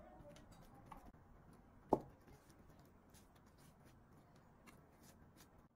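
Faint small clicks and ticks, with one sharp knock about two seconds in.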